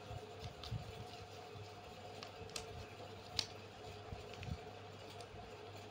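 Paper being folded and creased by hand on a clipboard: faint crinkles and a few small sharp clicks, the sharpest about three and a half seconds in, over a steady low hum.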